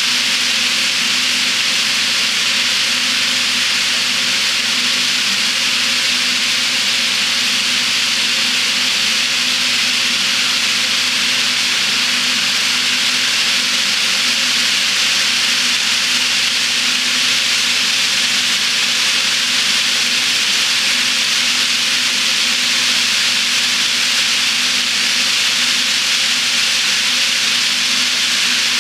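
Long HO scale model freight train of gondolas on metal wheelsets rolling around a helix of Bachmann EZ nickel silver track: a loud, steady hiss of many wheels on rails over a steady low hum.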